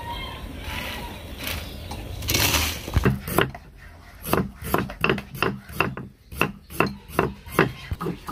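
Knife chopping ginger on a wooden cutting board, sharp even knocks at about three a second starting about three seconds in, after a brief scrape.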